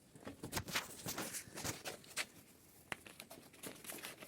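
Irregular light clicks and rustling, as of objects or packaging being handled.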